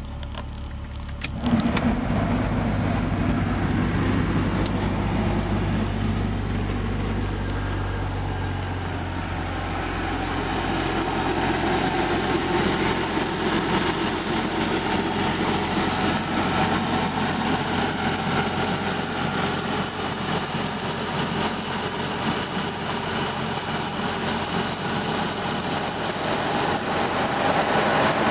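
Toyota Supra JZA70's 1JZ-GTE straight-six idling with the air conditioning on, making an abnormal noise. The sound steps up in level about a second and a half in, and from about ten seconds in a fast, high-pitched rattle grows in over the running engine.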